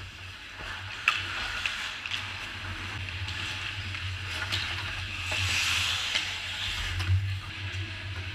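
Ice hockey skate blades scraping and carving on the ice, with sharp clicks of sticks and puck now and then and a louder scrape about five to six seconds in, over a steady low hum.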